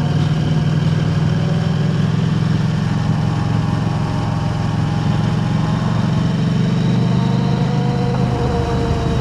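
KTM 890 Adventure R's parallel-twin engine running at steady revs through an Arrow Race-Tech black aluminium aftermarket exhaust, its note easing slightly lower near the end.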